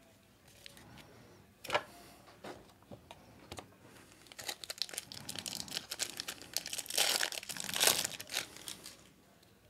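Foil wrapper of a trading card pack being torn open and crinkled: a single sharp click about two seconds in, then dense crinkling that starts about halfway through and is loudest near the end.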